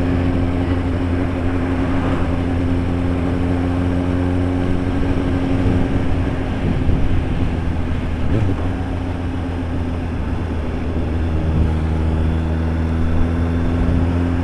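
Suzuki GSR750's inline-four engine through an aftermarket SP Engineering tri-oval exhaust, running at steady revs under a broad hiss of wind and road noise. The engine note fades into the noise for a few seconds in the middle, then comes back strongly.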